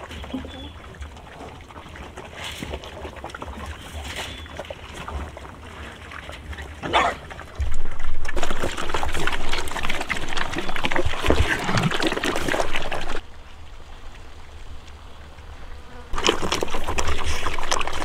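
Pigs feeding from a log trough, chewing and slurping chopped wet feed with a busy crackling of munching noises. It is quieter at first, loud from about eight seconds in until about thirteen, and loud again near the end, with the changes coming abruptly.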